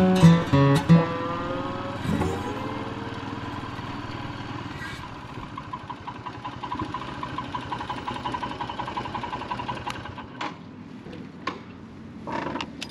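Royal Enfield Himalayan's single-cylinder engine running steadily, then shut off about ten seconds in, followed by a few sharp clicks.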